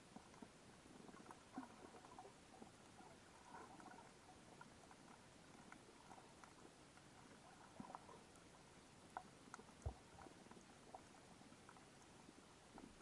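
Faint underwater reef ambience: scattered soft clicks and crackles over a low, steady hiss. A single low thump comes about ten seconds in.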